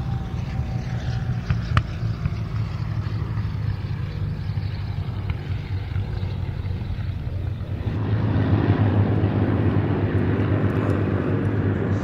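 Piston aero engine of a WWII propeller warbird in flight, a steady drone. About eight seconds in the sound changes abruptly and gets louder and fuller.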